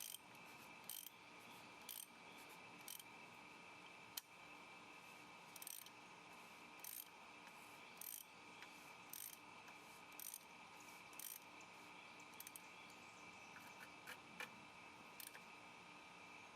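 Faint clicks of a socket wrench ratcheting in short bursts about once a second, tightening the plastic cover of the oil filter housing.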